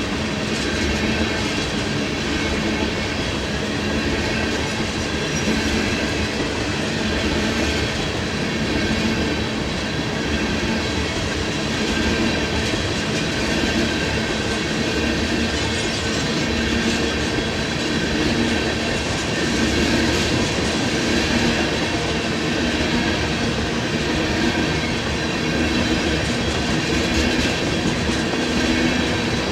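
Empty tank car freight train rolling past, a steady noise of steel wheels on rail.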